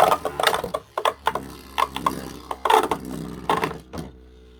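Two metal-wheeled Beyblade tops clashing in a plastic stadium: rapid, irregular sharp clacks that stop about four seconds in, as the battle ends.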